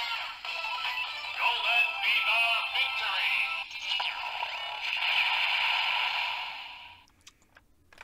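Kamen Rider Geats DX Fever Slot Raise Buckle toy playing its electronic jingle: synthesized music with a processed voice, ending in a held note that fades out about seven seconds in.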